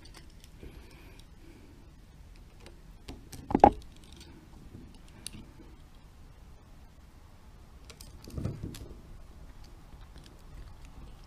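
Small clicks and scrapes of an Allen key working a set screw on the plastic cap of a metal detector battery pod while the cap is pressed down. A single sharp knock about three and a half seconds in, and a louder scrape lasting about half a second near eight and a half seconds.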